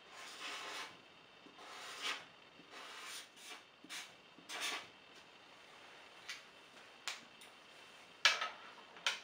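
Black felt-tip marker rubbing across paper in about five short strokes as lettering and a spiky balloon outline are drawn. A couple of faint clicks follow, then a sharp knock about eight seconds in as the marker is set down on the wooden easel tray.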